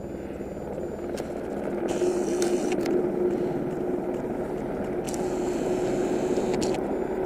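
An engine drones steadily with a constant hum, growing louder over the first two seconds and then holding.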